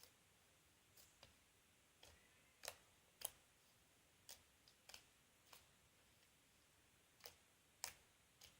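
Cloud slime being handled, giving about a dozen short, faint clicks and pops at irregular intervals.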